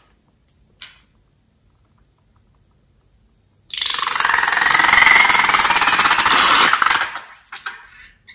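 Slime and air squeezed out through the neck of a balloon into a bowl of liquid slime: a short tick about a second in, then a few seconds in a loud, rapid sputtering buzz for about three seconds, trailing off into small squelches.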